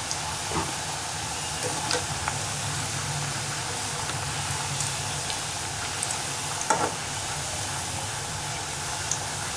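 Thattai (rice-flour crackers) sizzling steadily as they deep-fry in hot oil in an aluminium kadai. A few light clicks come from a perforated metal spoon touching the pan, the loudest about two-thirds of the way through.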